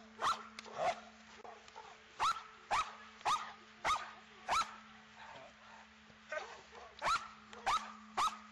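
Young Belgian Malinois-cross female barking at a training helper in protection work: about ten short, sharp barks in quick succession, with a brief pause about halfway through.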